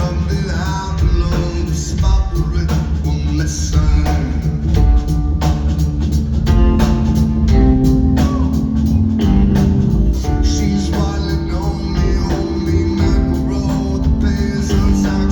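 Live rock band playing a steady groove through a concert PA, with bass, drums and guitar and a regular drum beat.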